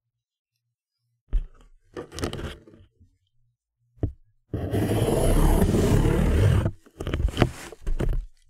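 Fingertip dragged across corrugated cardboard, picked up by a mic inside the box and a contact mic on it, making a deep growling scrape. A knock about a second in and a few short strokes lead to one long scrape of about two seconds, followed by more short strokes near the end.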